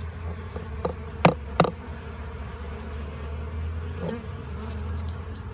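Honeybees buzzing steadily around the hive entrance. Two sharp clicks come a second or so in, with a softer knock near the end.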